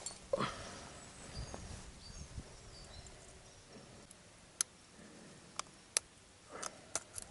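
A few sharp, isolated clicks later on, with a quick cluster of them near the end, over faint high chirps of distant birds.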